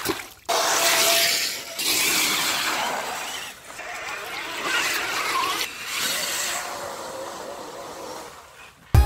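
Radio-controlled monster truck driving through mud and puddles: its motor whines in several bursts of throttle while the tyres churn and splash through wet mud.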